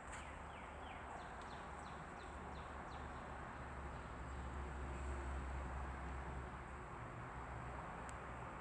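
Outdoor background: a run of short, falling chirps in the first three seconds over a steady hiss and a low rumble, with a faint steady high tone throughout.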